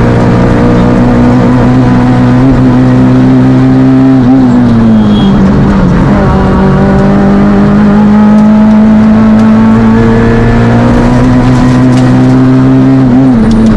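Fiat Panda Kit Car's engine at high revs under load, heard from inside the car and through a GoPro housing without its audio adapter. Revs ease off about four seconds in, climb slowly again, and drop near the end.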